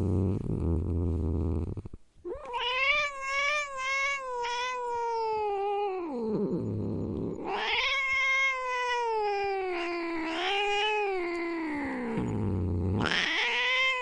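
Domestic cat yowling: two long, drawn-out, wavering yowls, each falling in pitch at its end, with a third starting near the end. A low rumble comes before the first yowl.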